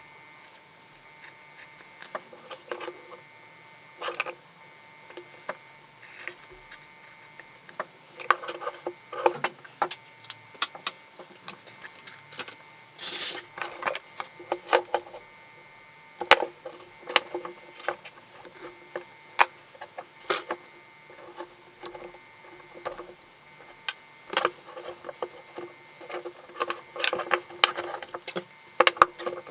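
Irregular clicks, taps and scrapes of small metal and plastic battery-pack parts being handled and worked by hand, with a longer scrape about thirteen seconds in, over a faint steady tone.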